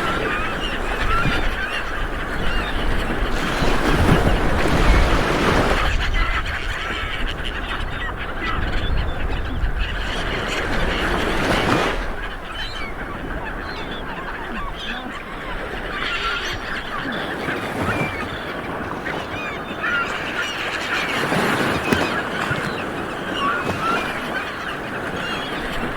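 Light waves washing onto a beach, surging about four seconds in, near twelve seconds and again a little after twenty seconds, with many short bird calls over the surf.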